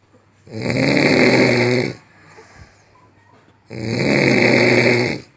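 A person snoring loudly: two long snores, each about a second and a half, about three seconds apart.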